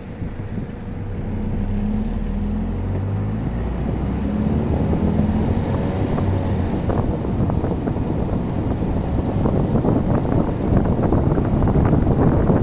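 Car driving on rough, patched asphalt. A low engine hum shifts in pitch over the first few seconds, then tyre and road rumble takes over and grows steadily louder.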